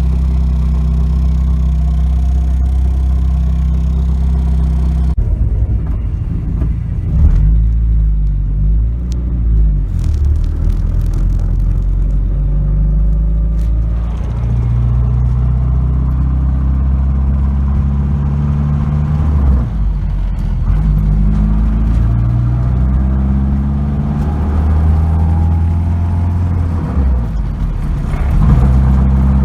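1992 Nissan 240SX's 2.4-litre four-cylinder running, steady at first, then its pitch shifting up and down several times. Through this comes the rattling and scraping that the owner gives as the symptom of a bad clutch.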